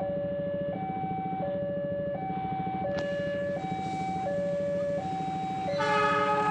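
Railway level-crossing warning alarm sounding two alternating tones, high then low, each held about 0.7 s. Near the end, the horn of the approaching CC 206 diesel locomotive starts, a louder chord of several notes.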